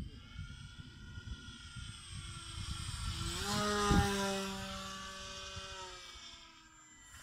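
Propeller of a 45-inch RC Bf 109 model plane flying past: the motor-and-prop tone grows louder and drops in pitch as it passes, about four seconds in, then fades away. Wind rumbles on the microphone.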